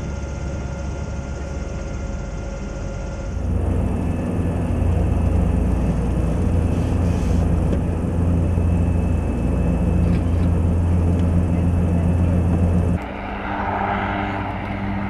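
Zeppelin NT airship's engines and propellers droning steadily, heard inside the gondola low on the approach to the hangar. The drone gets louder about three seconds in and drops away suddenly near the end.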